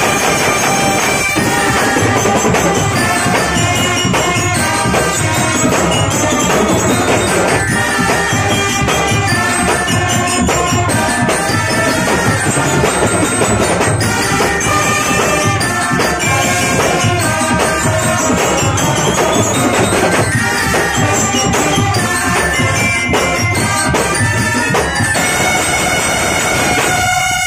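Brass marching band of trumpets, mellophones and sousaphones playing a loud tune with percussion keeping the beat; the music breaks off abruptly at the end.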